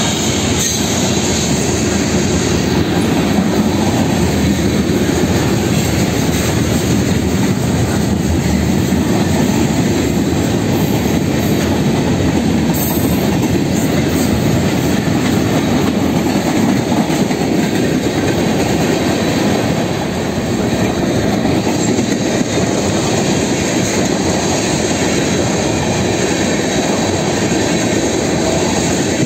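Freight train cars rolling past close by: a steady noise of steel wheels running on the rails, dipping slightly about two-thirds of the way through.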